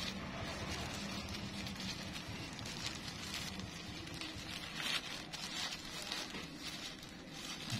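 Thin plastic wrapping bag crinkling and rustling as it is handled and pulled open by hand, a dense run of small crackles that is loudest around the middle.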